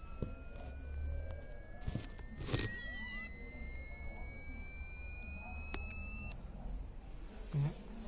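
Electronic test tone from a speaker: a high whistle slowly rising in pitch, cut off suddenly about six seconds in. It is a frequency sweep played to a bat to test its response.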